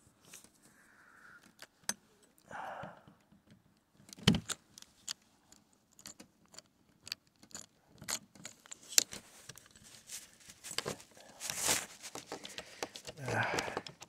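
Screwdriver working at the screws of a brass doorknob: small, irregular metallic clicks and scrapes as the tip seats in and turns the screw heads, with one louder knock about four seconds in.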